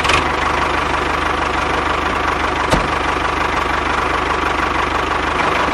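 Steady engine-like running sound with a fast low chugging pulse and a steady hum, as the toy tractor drives. It starts suddenly and cuts off near the end.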